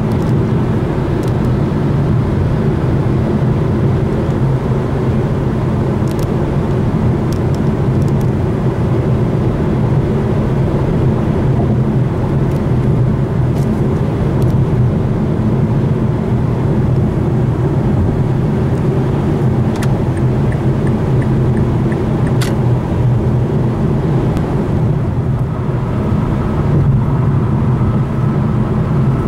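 Steady low rumble of road noise heard inside a car cabin while driving at highway speed, with a few faint clicks.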